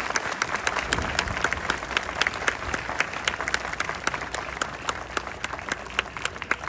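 Crowd applauding: many hands clapping at an uneven rate, with no unison beat, fading slightly near the end.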